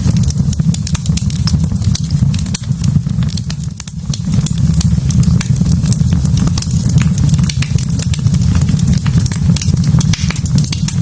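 Wood fire burning in a fireplace, crackling with frequent sharp pops over a steady low rumble.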